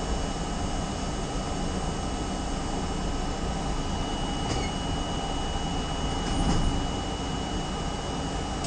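R32 subway train running through a tunnel, heard from inside the front car: a steady rumble and rush of wheels on rail with a thin, steady high tone. It swells briefly about six and a half seconds in.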